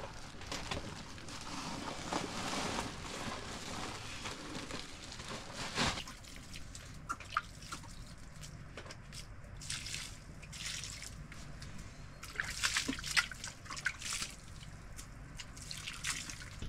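Water sloshing, trickling and dripping, with short splashes. The sound drops and changes abruptly about six seconds in, and there is a quick run of splashes near the end.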